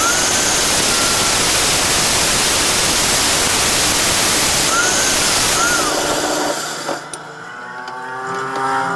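Angle grinder disc grinding: a loud, steady hiss that stops about seven seconds in.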